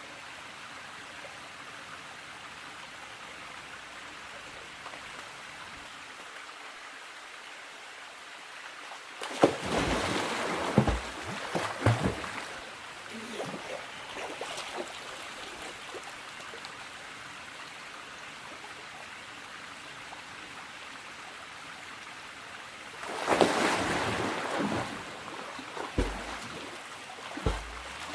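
Stream water running steadily, with two spells of louder, closer splashing, one about ten seconds in and one a little before the end, and a couple of short low bumps near the end.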